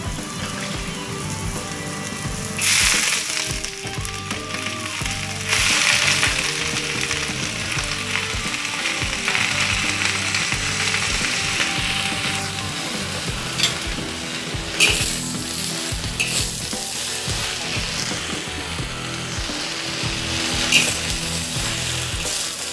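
Garlic and snow pea leaves sizzling in hot oil in a wok, a steady hiss with two louder surges of sizzling a few seconds in. A metal spatula clicks and scrapes against the wok a few times during stirring.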